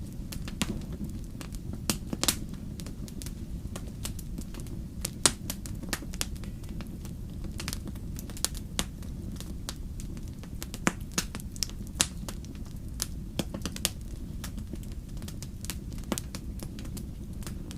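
Wood campfire crackling, with many irregular sharp pops and snaps over a low steady rumble.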